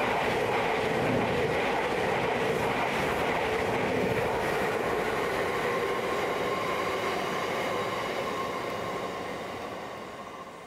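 Freight train's box wagons and an electric multiple-unit passenger train passing on the rails together: a steady rumble of wheels on track with a few held whining tones. It dies away over the last couple of seconds as the trains draw off.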